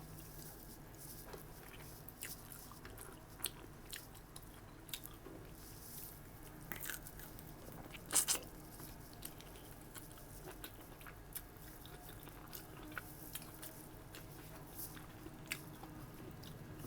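A person eating close to the microphone: chewing, with scattered short, sharp mouth clicks. The loudest is a pair of clicks about eight seconds in.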